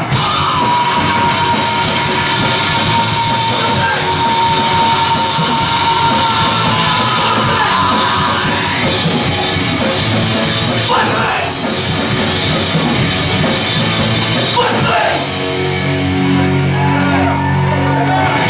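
Live punk/hardcore rock band playing loud: distorted electric guitar, bass guitar and drum kit, with shouted vocals.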